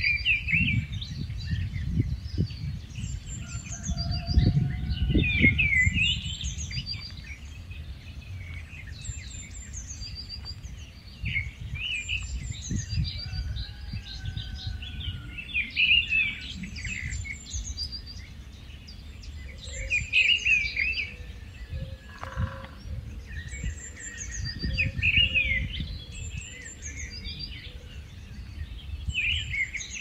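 Rufous-tailed scrub robin singing short, varied, high song phrases that come back every few seconds, over a low rumble.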